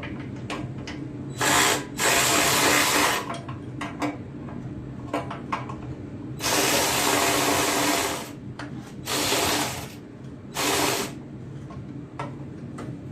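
A power driver spins a socket on bolts in five bursts, the longest under two seconds, with small clicks of the socket and bolts in between, tightening down the belt tensioner mounting.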